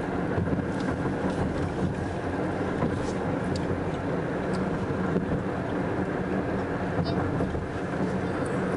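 Steady low rumble of a car running, heard inside its cabin, with a few faint clicks from chewing.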